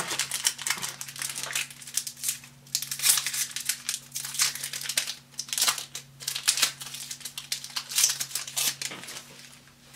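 Foil wrapper of a Magic: The Gathering booster pack crinkling in the hands, with irregular crackles throughout as it is handled and torn open.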